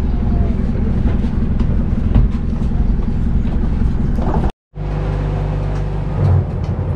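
Water bus engine running, a steady low rumble mixed with the rush of river water past the hull. About halfway through the sound cuts out for a moment, and then the engine goes on as a steadier low hum heard from inside the cabin.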